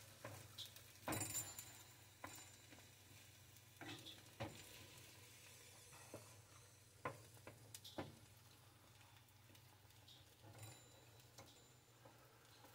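Faint scraping and tapping of a wooden spatula stirring scrambled eggs and rice in a nonstick frying pan, irregular soft knocks every second or so over a light sizzle.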